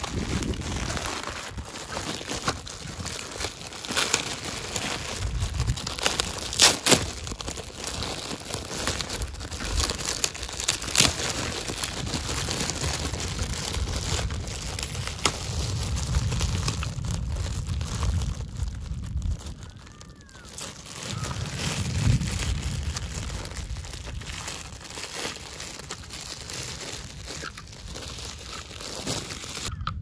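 Clear plastic packaging bag crinkling and rustling as hands open it and pull out a die-cast toy tractor, with a few louder sharp crackles in the first third.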